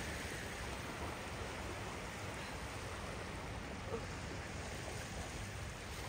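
Beach surf washing in, a steady even noise.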